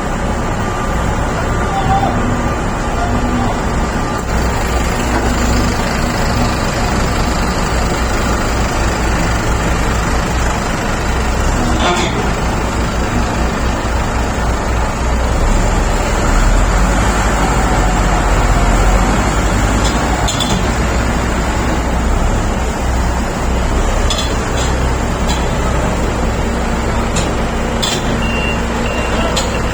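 Shantui SD32 crawler bulldozer's diesel engine running steadily with a heavy low rumble, swelling a little in the middle, and a few short sharp knocks over it.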